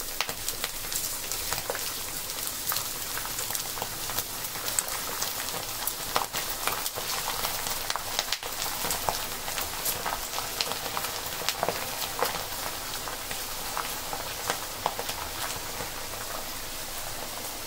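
Large sago pearls (sabudana) deep-frying in hot oil over a high flame: a steady sizzle with frequent sharp crackles.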